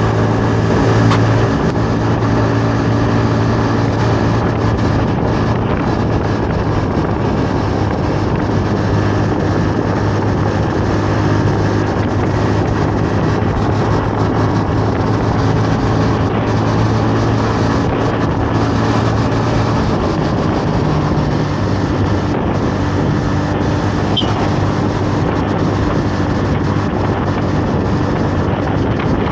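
Honda Navi 110's single-cylinder four-stroke engine running at a steady cruising speed, with wind and road noise rushing past.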